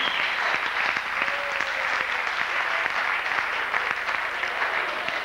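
Audience applauding: dense, steady clapping from a seated crowd after a band's piece.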